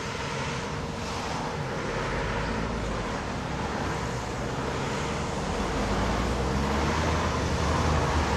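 Cars moving off and driving across a railway level crossing, their engine and tyre noise building and growing louder toward the end.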